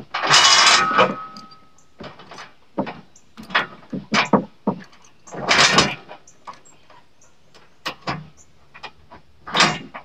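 Steel chain rattling and clanking in irregular bursts as it is pulled and handled over wooden deck boards and against a tractor's loader bucket; one clank near the start rings briefly.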